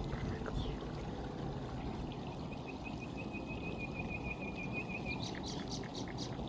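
A stream flowing steadily over rocks, with a bird's rapid trill in the middle and a few quick chirps near the end.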